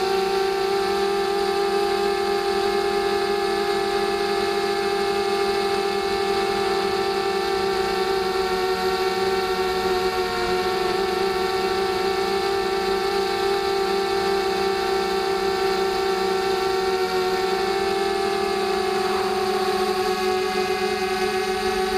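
Ideafly F210 racing quadcopter's brushless motors and two-bladed propellers running in flight, a steady multi-tone whine whose pitch shifts slightly about three-quarters of the way through.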